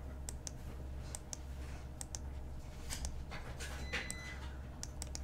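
Computer mouse clicking repeatedly, sharp clicks about once a second and often in quick pairs, over a low steady electrical hum.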